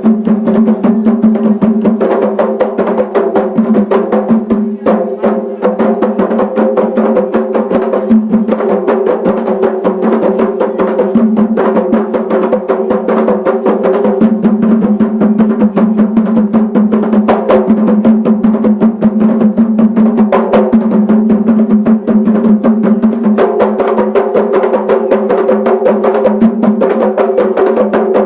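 Music with fast, dense drum percussion over steady held tones.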